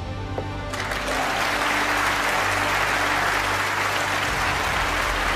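Snooker arena crowd applauding a pot on the blue, the clapping starting about a second in and holding steady, over background music.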